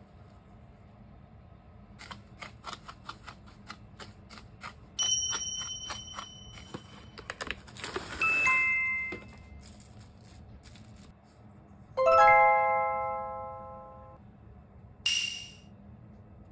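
A string of bright chime-like sound effects over a faint low hum: a quick run of clicks, then several ringing chime tones, a louder bell-like ding about twelve seconds in that fades over a couple of seconds, and a brief swish near the end.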